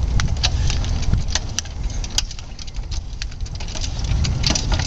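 Tree jack being pumped by hand to tip a dead cottonwood over its saw cut, giving scattered sharp metallic clicks, over a steady low rumble.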